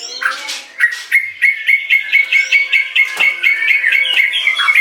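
White-rumped shama singing: a fast run of sharp, evenly repeated notes, about five a second, starting about a second in and running until near the end.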